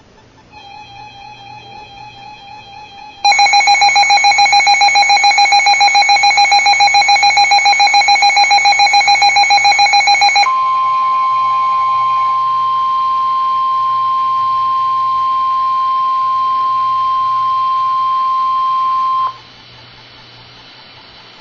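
Weather-radio alert tones: an electronic alarm beeps in a fast even pulse, faint for the first few seconds and then loud for about seven seconds. It gives way to a single steady tone of about 1050 Hz, the NOAA Weather Radio warning alarm tone, held for about nine seconds and cut off abruptly, leaving faint radio hiss and hum.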